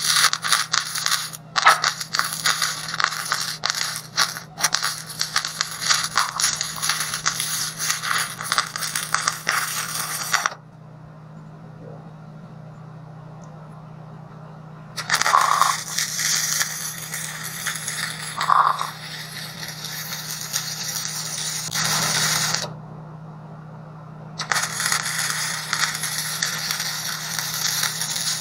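Electric arc welding a steel leg onto a steel tank: the arc crackles and sizzles in three runs, about ten seconds, then about seven seconds starting some fifteen seconds in, then again near the end, with short pauses between.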